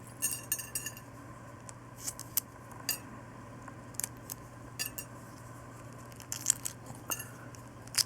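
Hardboiled egg being peeled by hand: small sharp cracks and crackles of eggshell breaking and coming away, in irregular clusters, over a low steady hum.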